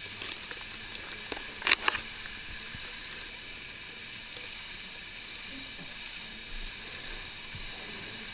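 Cloth sheet rustling as it is moved about, with two sharp clicks close together about two seconds in, over a steady hiss.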